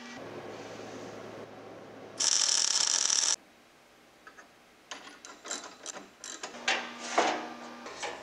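Ratchet wrench clicking in quick, irregular strokes as a bolt on a bandsaw bracket is worked. About two seconds in there is a loud, second-long burst of hiss.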